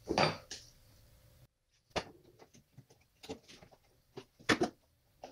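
Long needle-nose pliers clicking and tapping against plastic blade fuses and the fuse block as fuses are gripped and pulled. The sharp clicks are scattered, with a louder pair about four and a half seconds in.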